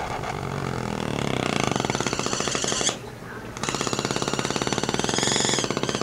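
Hand-held Bernzomatic propane torch burning with HHO gas fed into its air holes, the flame fluttering in a fast, even pulse of about a dozen beats a second. The pulsing breaks off briefly about three seconds in and comes back.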